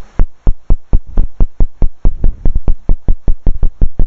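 Underwater hydrophone recording of a burbot calling: a train of loud, low knocks, about four or five a second at first, speeding up to about seven a second by the end.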